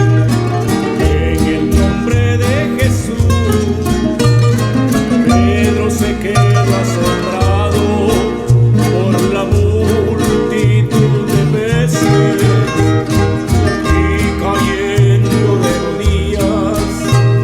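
Rondalla ensemble music: guitars playing a rhythmic plucked passage over a steady, repeating bass line.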